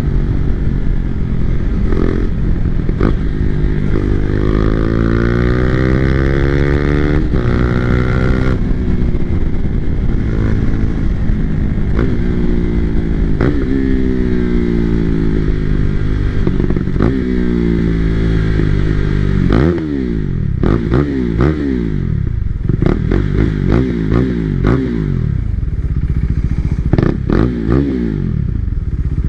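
KTM RC390 single-cylinder engine through an Austin Racing slip-on exhaust, pulling up through the gears with the revs rising and dropping at each shift. From about twenty seconds in come a string of downshifts with quick throttle blips, and sharp cracks in between.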